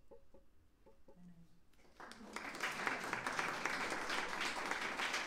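Audience applauding: many hands clapping, starting about two seconds in and holding steady.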